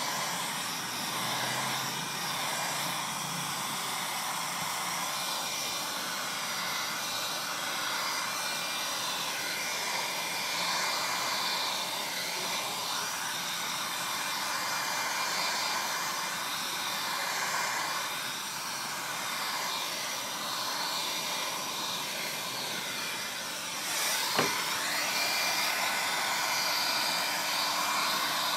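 Handheld electric heat gun running steadily, its fan blowing a constant rush of hot air with faint steady whining tones on top. A single sharp click near the end.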